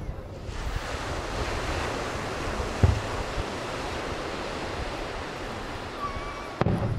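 Surf washing onto the beach, a steady rushing hiss, with a dull firework boom about three seconds in and another near the end.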